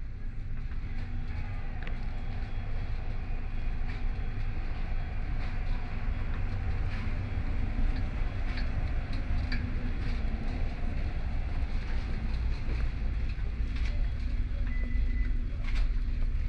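A steady low rumble with a faint hum and scattered light clicks and taps.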